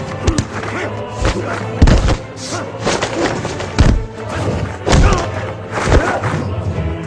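Fight-scene punch and kick impact effects, four heavy thuds about a second apart, over a film score with a steady low note.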